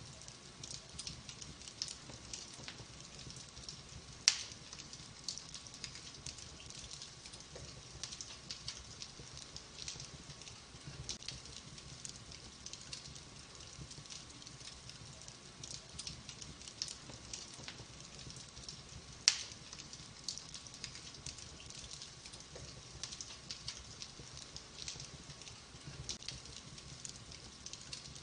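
Wood fire in a fireplace crackling steadily, with many small ticks and two sharp, loud pops, one about four seconds in and another about fifteen seconds later.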